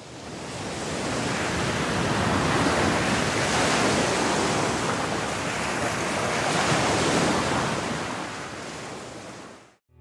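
Sea surf: a steady rushing wash of waves, fading in over the first second or two and fading out just before the end.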